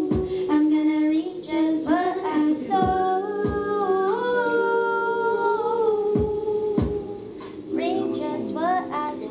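A woman singing live into a handheld microphone over band accompaniment: long held keyboard chords and deep bass-drum thumps that come in pairs every few seconds.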